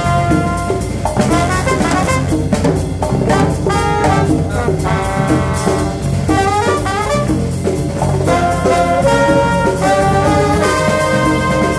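Live jazz big band playing Afrobeat-influenced music: a horn section of trombone and saxophones playing held and moving lines over a steady drum kit groove.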